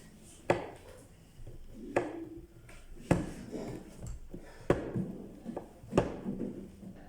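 Hard objects knocked and clattered on a work surface: five sharp knocks, roughly one every second or so, with lighter handling noise between them.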